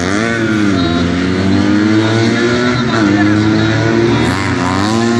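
Classic car engine revving up and down, its pitch rising and falling several times as the car accelerates and lifts off, over a steady low engine hum.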